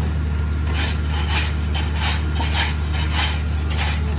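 Diesel engine of road-paving machinery running steadily with a low hum. From about a second in, a rhythmic scraping comes over it at roughly three strokes a second.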